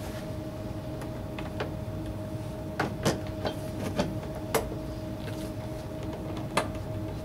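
Plastic drive belt cover being fitted back onto a snow blower's housing: scattered light clicks and knocks of plastic against plastic, about eight of them, over a steady hum.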